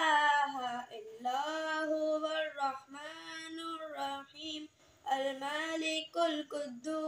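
A boy singing unaccompanied, holding long drawn-out notes in phrases with short pauses between them.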